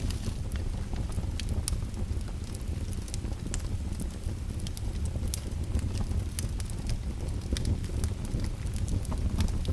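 Fire crackling: a steady low rumble of flames with frequent sharp pops and snaps at irregular intervals.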